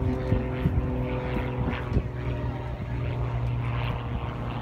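Propeller engine of the Super Stinker aerobatic plane droning steadily overhead as it circles trailing smoke, with a few brief knocks.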